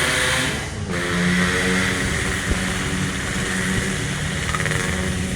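A motor vehicle engine running close by, its pitch shifting up and down.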